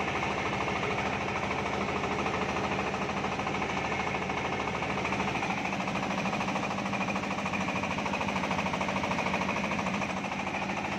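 Amec 1115 single-cylinder diesel engine (24 hp) running steadily with a fast, even knock, driving a rice huller and polisher that are milling rice.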